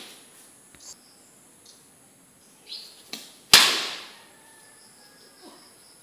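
A cricket bat hitting a bowled ball once, a sharp crack with a short ringing tail about three and a half seconds in, with a fainter knock just before it.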